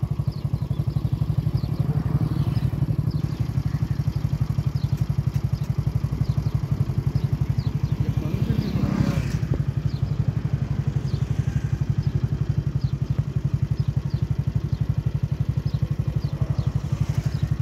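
Small engine idling steadily with a fast, even pulse, swelling briefly about nine seconds in.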